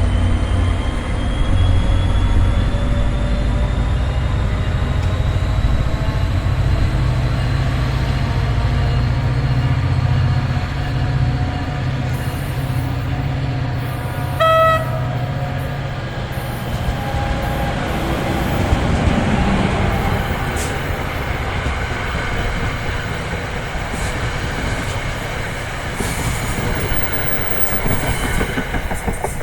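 NJ Transit commuter train moving through the station: a heavy low rumble and a slowly rising whine, a brief horn toot about halfway through, then the wheels clattering over the track.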